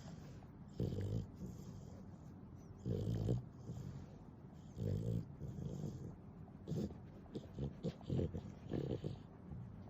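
A pet snoring: loud snores about every two seconds, then a quicker run of short, choppy snorts in the second half.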